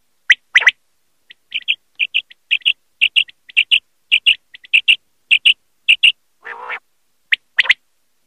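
Common quail calling: loud, sharp notes in pairs near the start and again near the end, with a fast run of softer, high, short paired notes in between and a brief rasping, nasal note about six and a half seconds in.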